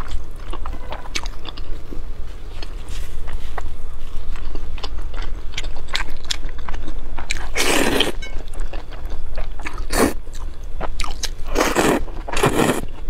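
Close-miked eating of noodles: small wet chewing clicks throughout, broken by several louder slurps as noodles are drawn into the mouth, one about eight seconds in, one near ten seconds and two close together near the end.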